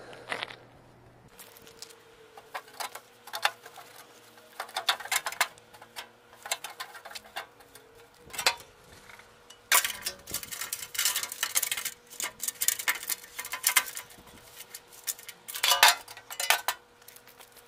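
A cloth rag scrubbing and wiping over a wet steel fender panel to dry it, in irregular scuffing strokes, with a few knocks as the panel is shifted and handled.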